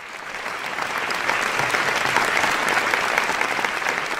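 Crowd applauding, many hands clapping in a dense crackle that swells up over the first second or two.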